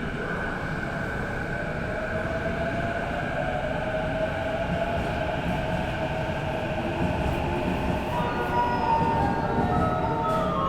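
Interior running sound of a JR East E231 series suburban train: the Hitachi IGBT inverter whines over the low rumble of the wheels on the rails. One tone rises slowly in pitch, and about eight seconds in, a cluster of stepping tones joins it.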